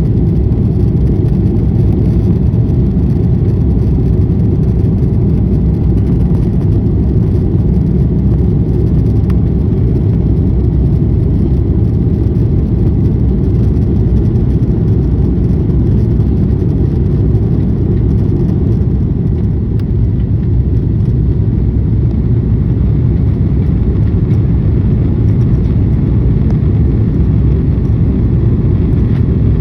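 Steady, loud low rumble of an Airbus A330-300's jet engines and rushing air, heard inside the passenger cabin.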